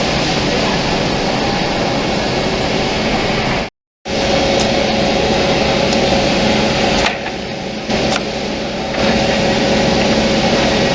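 Automatic double-end cutting and drilling woodworking machine running with a steady motor and saw noise. The sound cuts out briefly about four seconds in and drops lower for a couple of seconds past the middle.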